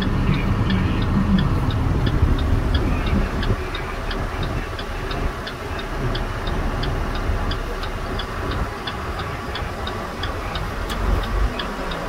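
Turn-signal flasher clicking steadily, about two to three clicks a second, over the low drone of a Peterbilt semi truck's engine and road noise inside the cab.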